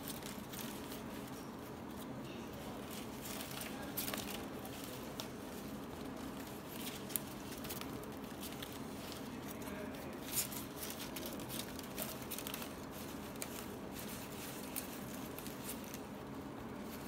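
Strips of palm leaf rustling, rubbing and clicking softly as fingers weave them through a plait, with scattered light ticks over a faint steady background hum.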